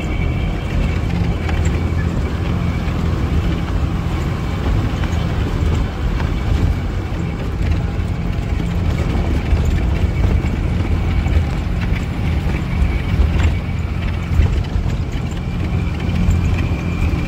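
Bus engine running steadily, a deep rumble heard from inside the cabin, with scattered knocks and rattles as it drives over a rough unpaved mountain road.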